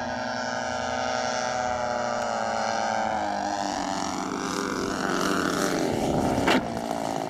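Twin propeller engines of a large radio-controlled C-119 model aircraft running as it flies in low on approach, their pitch shifting as it passes. About six and a half seconds in comes one sharp loud knock as the model touches down on the runway.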